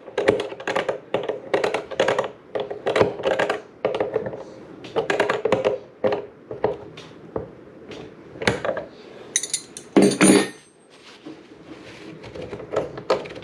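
Irregular taps, knocks and small clatters of parts and tools being handled on a workbench, with a louder, brighter clatter about ten seconds in.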